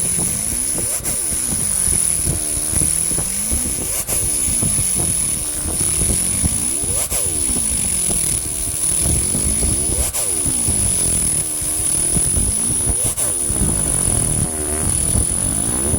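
300 W pulsed laser cleaner ablating rust from a bell: a steady high whine over a crackling buzz whose pitch sweeps up and down in a repeating cycle, as the box-shaped swing pattern closes in and opens back out. A sharp click comes about every three seconds.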